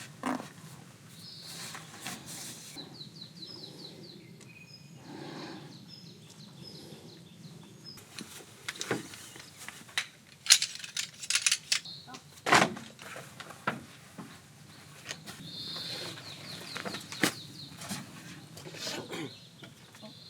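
Forest birds calling, with two runs of quick repeated high notes, one early on and one near the end. Between them come a few sharp knocks and clatters.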